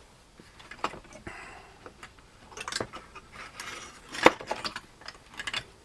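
Small Alox Swiss Army knives being handled, with scattered metal clicks and clinks and a rustle. The sharpest click comes about four seconds in.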